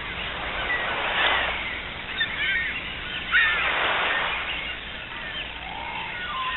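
Outdoor bird ambience: small birds chirping, with two broad swells of rushing noise about a second and four seconds in.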